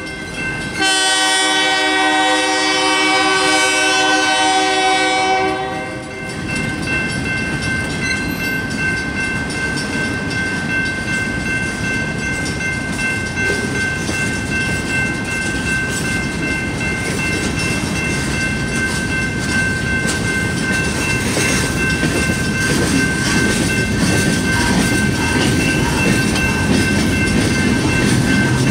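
Freight train's locomotive horn sounding a long, extra-loud chord blast that stops about six seconds in. After it comes the steady rumble and clatter of loaded tank cars and boxcars rolling over the grade crossing.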